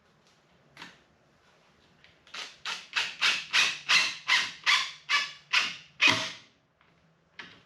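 A pocket-hole screw being driven by a drill into hardwood: about a dozen short, evenly spaced pulses of the screw turning in the wood, roughly three a second, over the low steady hum of the drill, stopping as the screw seats.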